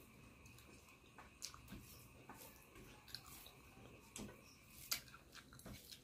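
Quiet close-up chewing with scattered short wet mouth clicks, while fingers mix rice on a plate.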